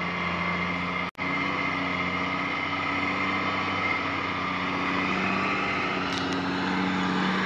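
Diesel engine of a loaded logging truck running steadily as the truck crawls along a gravel road. The sound drops out for an instant about a second in.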